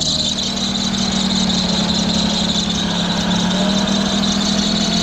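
Audi Q7 3.6 VR6 engine idling with a steady high-pitched squeal over it, which the owner takes to be coming from a belt.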